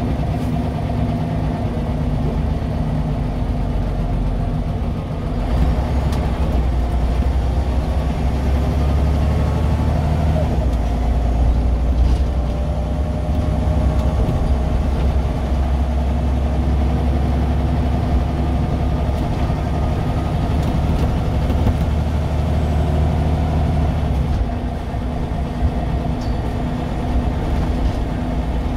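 Scania DC9 nine-litre five-cylinder diesel of a city bus, heard from inside the cabin. It is running lightly, then pulls harder about five seconds in, with a rising whine as the bus gathers speed through its ZF 4HP-500 automatic gearbox, and eases off near the end.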